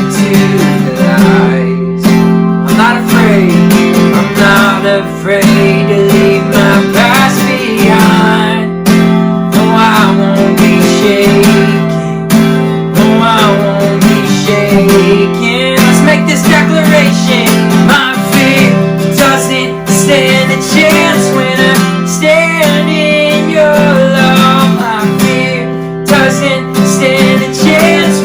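Strummed acoustic guitar playing steady chords, with a voice singing a melody over it.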